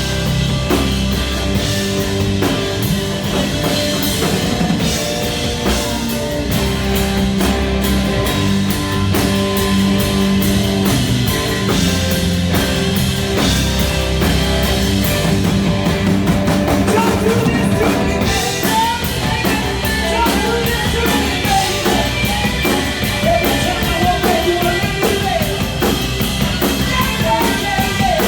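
A rock band playing an instrumental passage: drum kit keeping a steady beat under bass and electric guitar, with a wavering lead guitar line coming in over the top about two-thirds of the way through.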